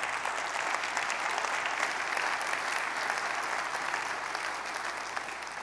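Large audience applauding, a steady dense clapping that eases off slightly near the end.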